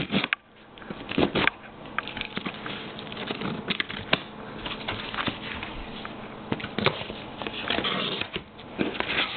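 A key dragged through the packing tape of a large cardboard box to slit it open: scratching and rustling of tape and cardboard, with sharp clicks and knocks now and then.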